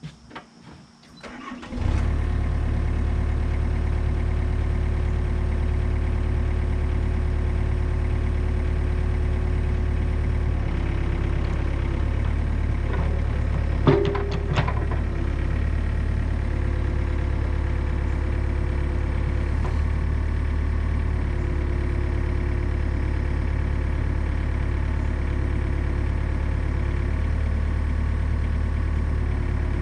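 Komatsu PC40 mini excavator's diesel engine starting about two seconds in, catching at once and then idling steadily. A single sharp knock sounds about halfway through.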